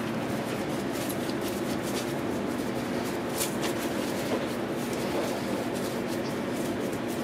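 Steady kitchen background hum with soft rubbing and patting as gloved hands work balls of dough on a floured stainless-steel counter.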